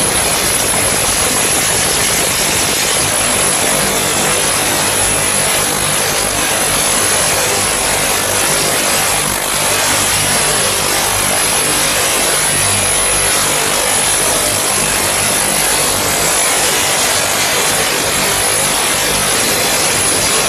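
A spiral duct machine's circular saw blade cuts through a rotating steel spiral duct, making a loud, steady grinding noise with a constant high-pitched whine over a low motor hum.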